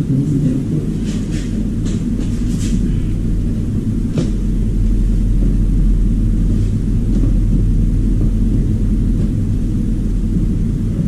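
An electric appliance motor running steadily with a deep, even rumble. There are a few light clicks, one about four seconds in.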